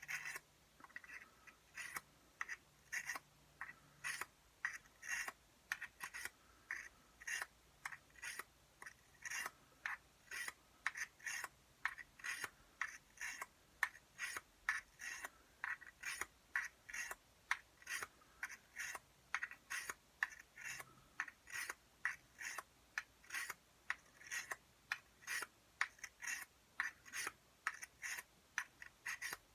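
Steel dagger blade being drawn across an oiled, medium-grit pocket sharpening stone in short, even scraping strokes, about two a second.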